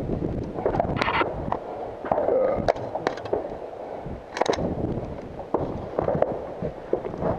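Wind buffeting the microphone, with a string of knocks and clatters as a rifle and gear bump against an SUV's door frame and interior while the shooter climbs in; the sharpest knock comes a little past the middle.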